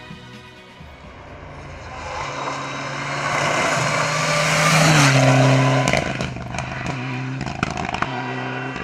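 Rally car engine at high revs, its pitch rising and growing louder as the car approaches at speed, loudest about five seconds in, then dropping in pitch as it passes. After an abrupt change, the engine is heard further off at a steady note with a few sharp cracks.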